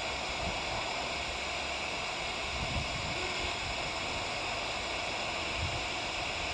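Steady hiss of an airband radio channel between transmissions.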